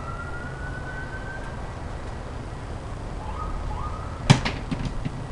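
A garden rake picked up from long-handled tools leaned against a tree stump: one sharp clatter about four seconds in, then a few lighter knocks. Earlier a faint tone rises slowly in pitch, and twice more briefly.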